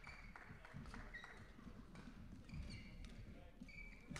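Faint indoor sports-hall ambience between rallies: shoes squeaking briefly on the court floor several times, with low thuds and muffled voices.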